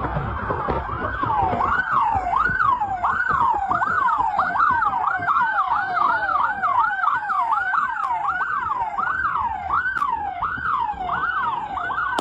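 Police siren in a fast up-and-down wail, each cycle sweeping up and back down about twice a second.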